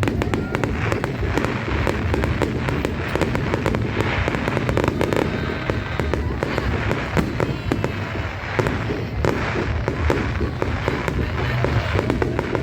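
Fireworks display: a dense, continuous run of bangs and crackling pops, one after another, with no break.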